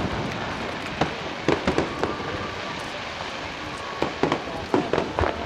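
Aerial fireworks bursting in a string of sharp bangs and crackles, bunched about a second in, around a second and a half in, and again near the end.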